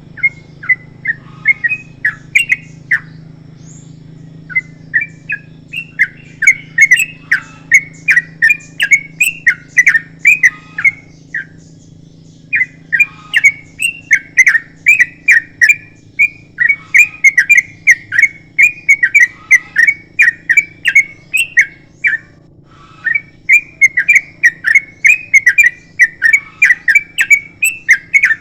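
Sooty-headed bulbul singing long strings of quick, rapid-fire whistled notes. It breaks off briefly three times: a few seconds in, near the middle and about three-quarters through. A faint low hum runs underneath.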